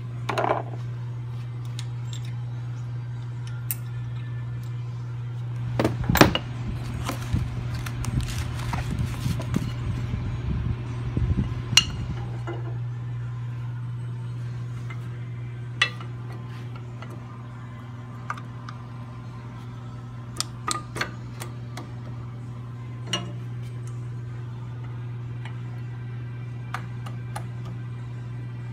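Scattered metal clicks and clinks, with a busier stretch of rattling and scraping from about six to twelve seconds in, as hands and a small screwdriver work on a Wilwood six-piston brake caliper. A steady low hum runs underneath.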